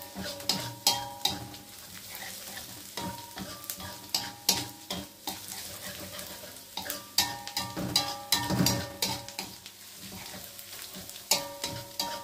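Wooden spatula stirring and scraping chopped shallots and garlic frying in a little oil in a metal wok, with sharp clacks against the pan in irregular runs over a light sizzle. The aromatics are being sautéed until fragrant and turning golden.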